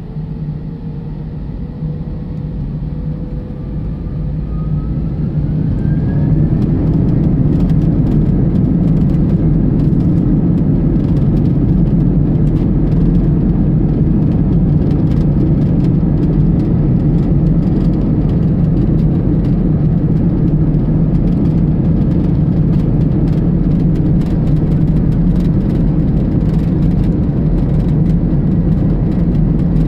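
Airliner jet engines heard from inside the cabin during a night takeoff, spooling up with a rising whine and growing louder over the first six seconds or so. They then settle into a steady loud rush at takeoff power as the aircraft accelerates down the runway, with frequent faint clicks over it.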